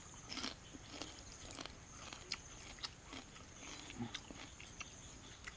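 Close-up chewing and crunching of crisp fried crickets being eaten by hand: a string of short, irregular crunches.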